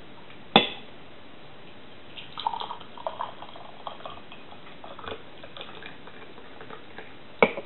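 Tea being poured into a cup, a patchy trickle of liquid from about two seconds in, with a sharp knock shortly after the start and another, loud, near the end.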